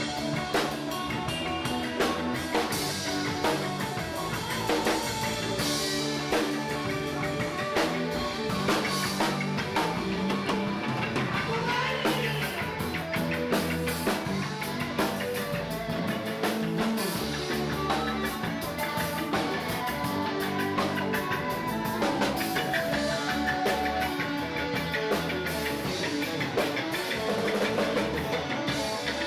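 Live band jamming: an electric guitar playing over a drum kit.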